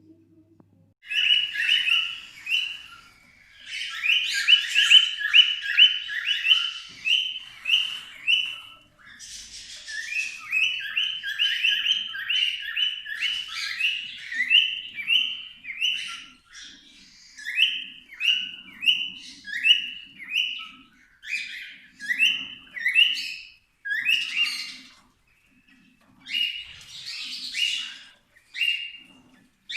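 Cockatiels chirping: a long series of short, repeated calls, in quick runs at first and more spaced out later on.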